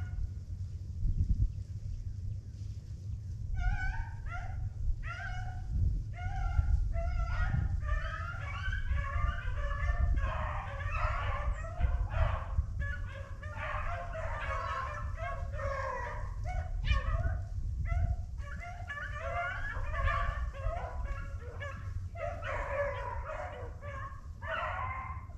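A pack of beagles baying as they run a rabbit's trail. A few separate calls come first, from about four seconds in, and then many voices overlap in full cry through the rest.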